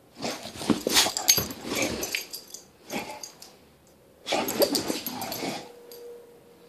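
English bulldog making excited play noises, grunts and growls, in two bouts, the second starting about four seconds in.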